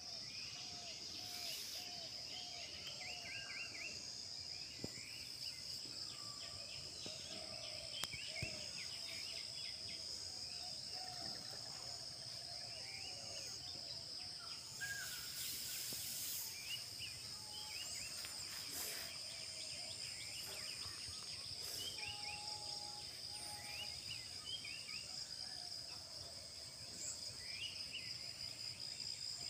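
Several birds chirping and calling in short, repeated notes over a steady high-pitched insect drone.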